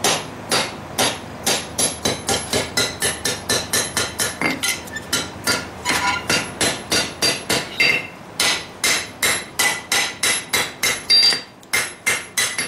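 Blacksmith's hand hammer forging lawnmower-blade steel on an anvil: a steady run of blows, about three a second, each with a short metallic ring, with a brief pause near the end.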